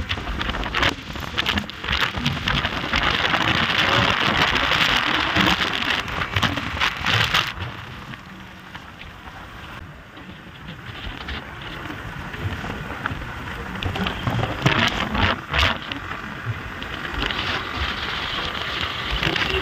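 Wind buffeting the microphone on a moving motorcycle, a rough rushing noise that eases for a few seconds in the middle and then builds again.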